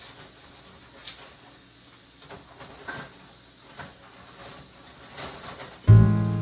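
Faint clinks and knocks of dishes being handled at a kitchen sink over a low hiss, then background music starts loudly near the end.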